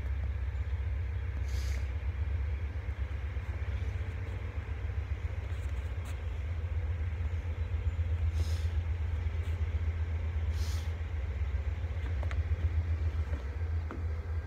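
Diesel freight locomotives rolling slowly toward a stop, a steady low rumble with three brief high hisses.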